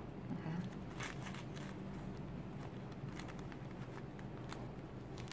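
Crinkling and crackling of stiff folded fabric strips being handled and pressed as they are coiled into a ring, in scattered small clicks, over a low steady hum.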